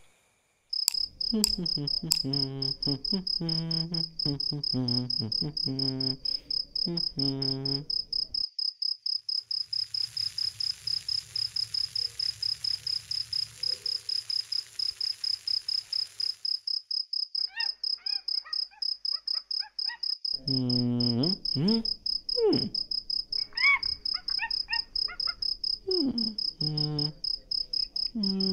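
Crickets chirping in a steady, rapid pulse, with frogs croaking in bursts over it. For several seconds in the middle, an even hissing noise comes in.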